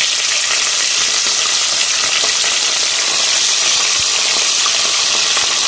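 Raw chicken pieces frying in hot oil in a metal pot: a loud, steady sizzle.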